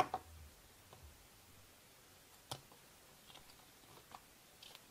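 Faint handling sounds of a leather card holder being worked apart with a metal blade tool on a cutting mat: scattered small clicks and ticks, with a sharper click about two and a half seconds in.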